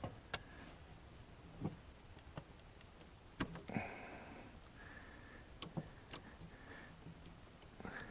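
Faint, scattered clicks and scuffs of hand work on a snowmobile's rubber fuel hose, as its end is trimmed with a knife and worked back onto the fitting to reseal a suspected air leak; the sharpest clicks come a little past the middle.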